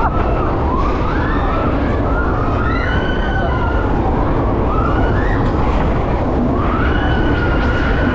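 Loud, steady fairground-ride noise, with high wailing tones that rise and fall every second or two and often overlap.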